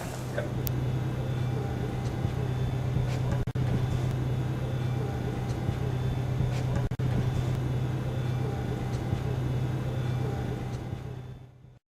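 Mini loader running the Schibeci Power Grinder attachment, a steady low machine hum. It cuts out briefly twice, then fades away near the end.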